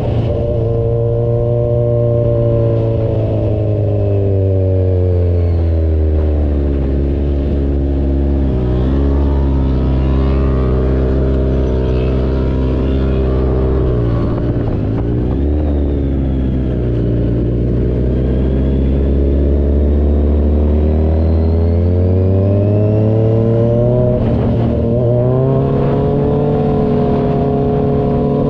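Kawasaki Z1000 Sugomi's inline-four engine running through an Avionic V4 aftermarket exhaust. Its pitch sinks slowly over the first several seconds, stays low with a couple of brief dips, then climbs back up and holds near the end.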